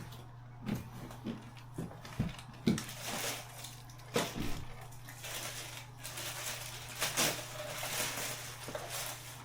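Irregular knocks, taps and rustling, as of objects being handled and put down, over a steady low hum.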